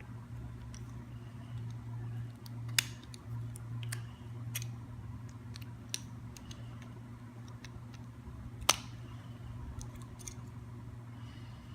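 Small plastic clicks and snaps as ink dampers are unclipped and pulled out of a Spectra 3000 garment printer's damper unit, with two sharper snaps about three and nine seconds in, over a steady low hum.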